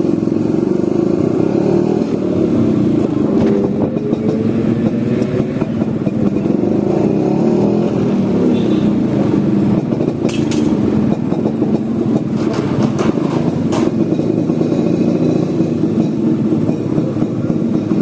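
Vespa scooter engine running while being ridden, its pitch rising and falling a little with the throttle, with a few short clicks about halfway through.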